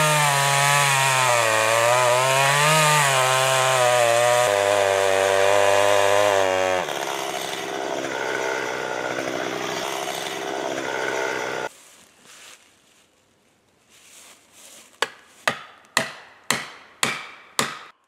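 Chainsaw cutting into a standing tree trunk, its engine pitch wavering under load, then running steadier and lower before it stops about twelve seconds in. Near the end comes a run of about seven sharp knocks, roughly two a second.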